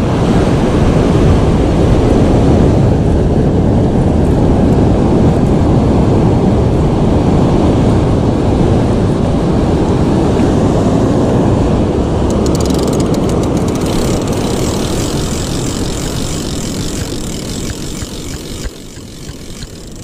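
Loud, steady roar of heavy ocean surf with wind rumbling on the microphone, easing off toward the end.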